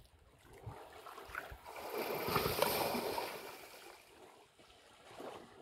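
Water sloshing and splashing as an African elephant wades through a waterhole, swelling into a rush of water about two seconds in and fading again.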